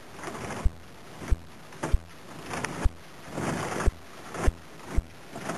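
Hull of a small boat knocking and scraping against floating plates of broken ice as it moves through a broken channel: about seven dull thuds, irregularly half a second to a second apart, with hissing scrapes swelling up before several of them.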